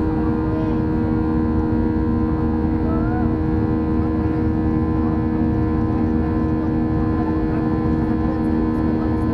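Steady cabin drone of a Boeing 737-800 in the climb after takeoff, heard inside the cabin: the rush of its CFM56 jet engines and the airflow, with a few steady hum tones over a constant rumble.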